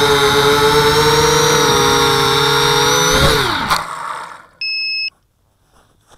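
The FPV250 quadcopter's four brushless motors whine steadily. About three seconds in they spin down in a falling whine as the quad lands, with a knock as it touches down. A single short electronic beep follows about a second later.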